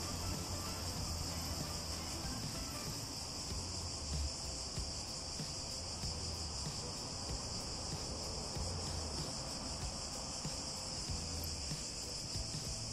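Insects shrilling in a steady, high-pitched chorus.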